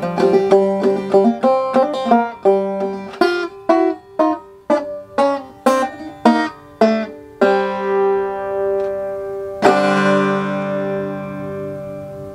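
Clawhammer-style banjo played solo: a steady run of plucked notes, then a held note, and a final strummed chord about ten seconds in that rings out and fades. The garage room gives it an echo.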